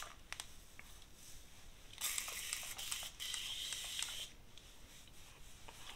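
Two back-to-back hissing spritzes from a fine-mist spray bottle of hair treatment being sprayed onto dry hair, each about a second long, starting about two seconds in.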